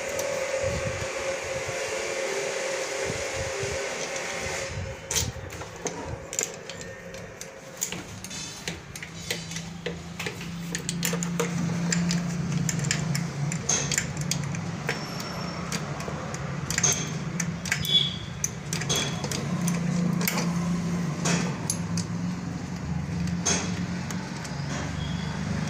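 Hand tools clicking and metal clinking as the two bolts holding a Honda Activa scooter's carburettor are loosened: many short, irregular clicks and knocks from about five seconds in. Under them, a steady whirr stops about four seconds in and is followed by a low hum.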